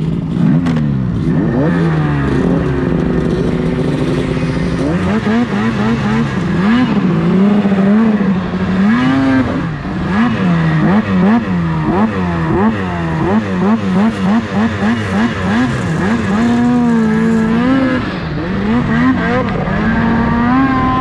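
Ski-Doo race snowmobile's two-stroke engine under way, revving up and down again and again as the throttle is worked, with quick rises and falls through the middle and a steadier high run near the end.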